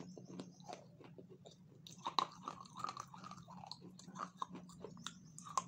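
A person chewing and biting chocolate-coated food close to the microphone: irregular wet mouth clicks and small crunches, over a steady low hum.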